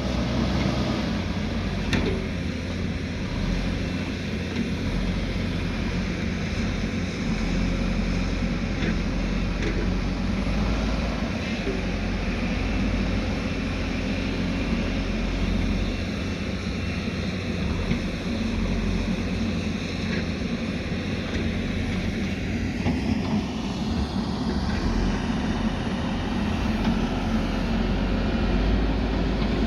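Diesel engine of a heavy earthmoving machine running steadily under work, with a few faint knocks and a rising whine about three-quarters of the way through.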